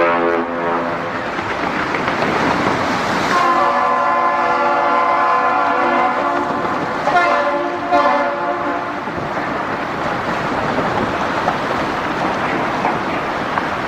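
A loud horn sounds for about five seconds, with short breaks near the end, over a steady rushing noise.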